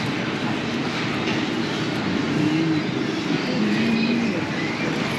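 Steady drone of vehicle traffic and engine noise, with faint voices underneath.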